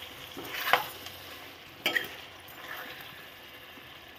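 A spoon stirs bottle gourd pieces frying in oil in a metal kadai, scraping sharply against the pan about a second in and again near two seconds, over a steady low sizzle.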